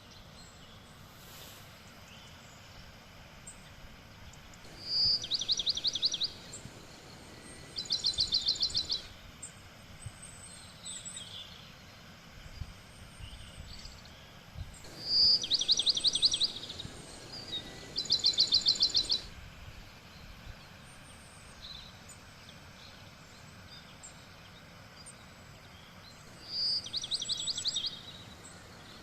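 A songbird singing short, fast trills of high notes, each about a second long, in pairs with a bright opening note, three times over, against a steady faint forest background hiss.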